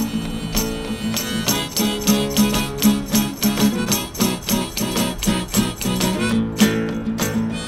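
Acoustic guitar played in a quick, even picking rhythm: an instrumental stretch of a song.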